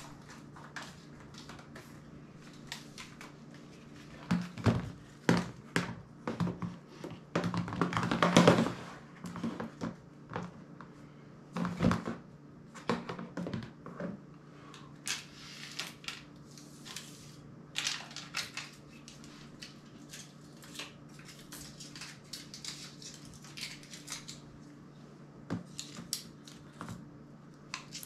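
Smartphones and a flip phone set down and shuffled on a tabletop pile: an irregular run of small plastic-and-glass clicks, taps and clatters, densest about four to nine seconds in, over a faint steady low hum.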